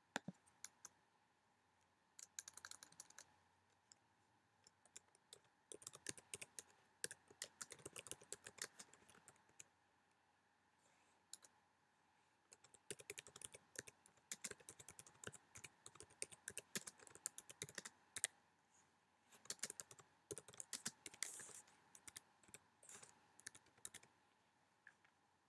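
Typing on a computer keyboard: quick runs of key clicks, broken by a few pauses of a second or two.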